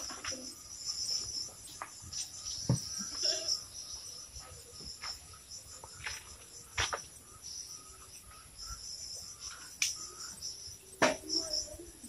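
Insects trilling steadily in a high, pulsing chorus, with a few sharp clicks and knocks scattered through it, the loudest near the end.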